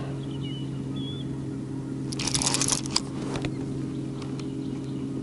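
Baitcasting fishing reel clicking rapidly for about a second, about two seconds in, as a hooked fish is fought, over a low steady hum.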